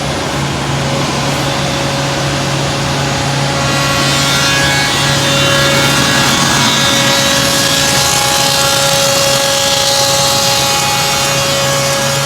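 HOMAG BOF 211 CNC wood machining centre running with a steady hum. About four seconds in, a louder, high spindle whine with cutting noise joins it.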